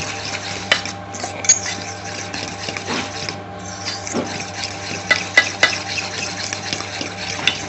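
A metal fork beating a raw egg mixture with chopped onion in a stainless steel bowl: a wet stirring sound with irregular sharp clinks of the fork against the bowl, several of them close together about five seconds in. A steady low hum runs underneath.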